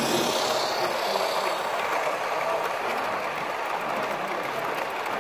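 Model railway train running on the layout: a steady mechanical whirr and rattle of its motor, gears and wheels on the track.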